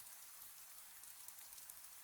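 Gentle rain, faint and steady, with small individual drops ticking through the hiss.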